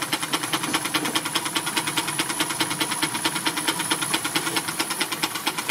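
Small twin-cylinder model steam engine running at a steady speed, with a rapid, even beat of exhaust puffs over a hiss of steam.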